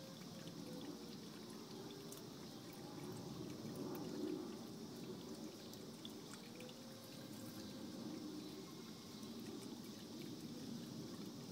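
Small stone bubbler fountain trickling and splashing into its basin, steady and faint, swelling slightly about four seconds in.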